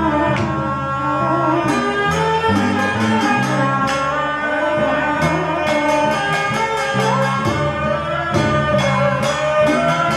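Funeral music: a melody line over a steady run of percussion strikes.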